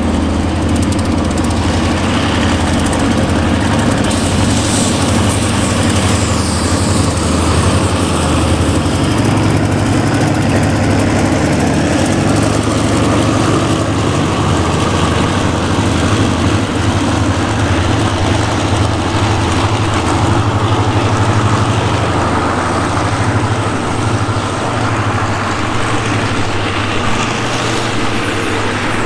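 Hitachi HID diesel-electric locomotive's engine running with a steady low drone as it hauls a passenger train past. The carriages roll by behind it near the end.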